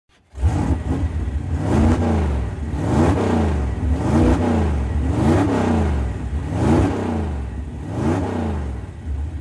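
A motor revving up and down over and over, about six times, each rev rising and falling in pitch over roughly a second, above a steady low rumble.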